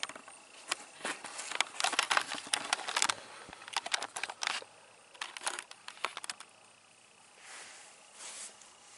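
Footsteps crunching over dry leaves, twigs and sandy ground, with rustling: a dense run of crackles and clicks that thins out after about three seconds, then a soft brushing rustle near the end.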